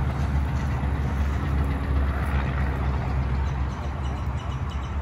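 Steady low rumble with a rushing hiss, rising and falling slightly: wind buffeting an outdoor phone microphone.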